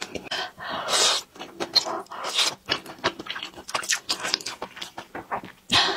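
Close-miked mouth sounds of a person eating spicy stir-fried noodles: wet slurping and chewing in quick, irregular bursts.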